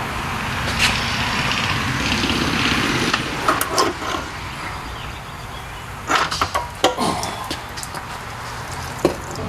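Scattered sharp knocks and clatters from metal parts and tools being handled, in small groups about 1, 4, 6 to 7 and 9 seconds in, over a steady low workshop hum.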